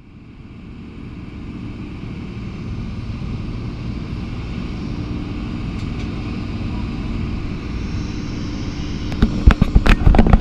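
Steady mechanical hum of engines and machinery on an airport apron, fading in at the start, with a faint held tone running through it. Near the end, a run of loud, sharp knocks and rustles.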